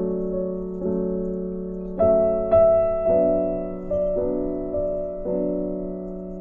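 Slow background piano music: soft chords struck about once a second, each one fading before the next.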